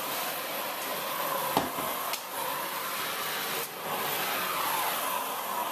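Hotpoint Ultimate Collection Energy Power 4 bagless cylinder vacuum cleaner running, its hard-floor nozzle being pushed over a laminate floor. A sharp knock comes about a second and a half in, and the motor's pitch dips and rises again near the end.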